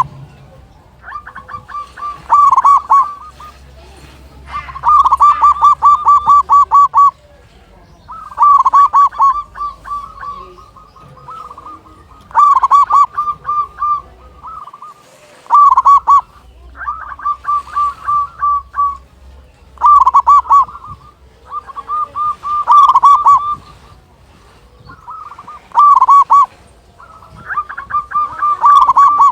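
Zebra dove (local perkutut) cooing loudly: about ten phrases of rapid, pulsing coo notes, one roughly every three seconds.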